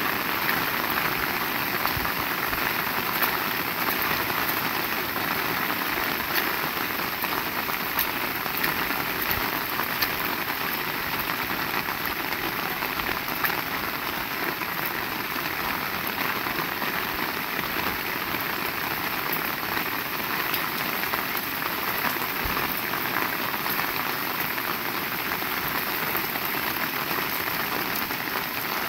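Heavy rain falling steadily, a dense even hiss dotted with many sharp individual drop impacts.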